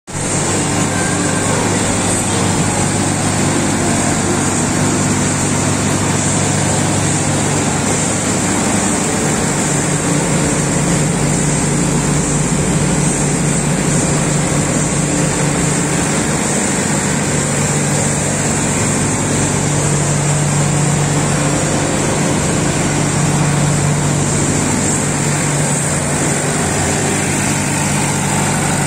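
Generator set running steadily on test: a Mercedes-Benz diesel engine driving an ADK 50 kVA three-phase single-bearing alternator. It makes a continuous engine hum with a steady high hiss, and the hum grows stronger about two-thirds of the way in.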